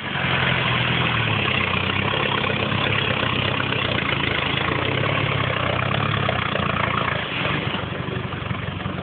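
Off-road four-wheel-drive vehicle engine running steadily, a low hum under a rough hiss, easing slightly in level about seven seconds in.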